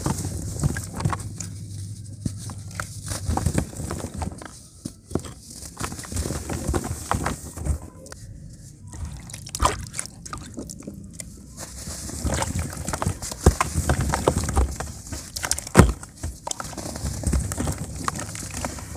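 Hands crumbling dry cement chunks, with soft thuds, crackles and the trickle of powder and pieces falling into a plastic tub. Partway through, a cement block is dipped into a bowl of water, sloshing and dripping.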